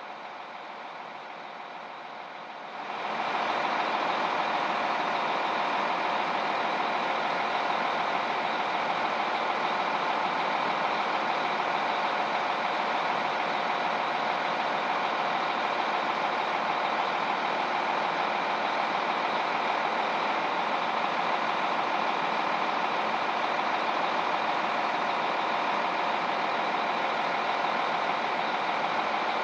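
Steady, unvarying heavy-vehicle engine drone, quieter for the first few seconds and then holding level. It is a recorded engine sound rather than anything the hand-pushed toy grader itself makes.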